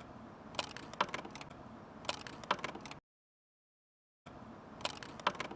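Scattered light clicks and taps, a few at a time, over a faint hiss. The sound cuts out to dead silence for just over a second in the middle.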